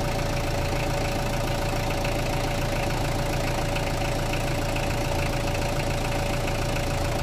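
Freshly overhauled Mitsubishi 4M40 four-cylinder diesel engine idling steadily and smoothly, rebuilt with new pistons, valves, bearings and timing chain guide. A thin steady whine rides over the even diesel idle.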